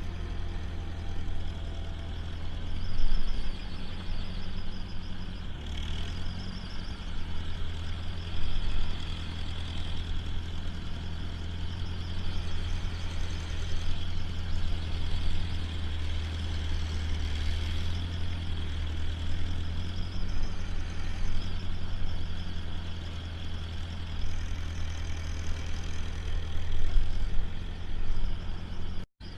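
Tractor engine running steadily at a low, even speed.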